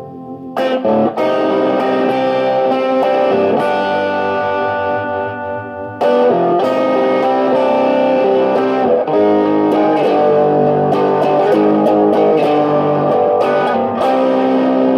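Electric guitar played through an envelope-controlled phaser pedal in fade-in mode: the notes start clean and the phaser is set to fade in on sustained notes and chords. Chords are struck about half a second in and again about six seconds in, with single notes ringing between.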